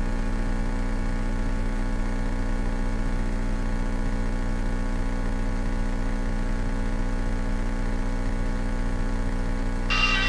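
Cessna 172K's four-cylinder Lycoming engine in cruise, heard as a steady drone through the cockpit headset audio. Near the end, a brief higher-pitched blip sounds.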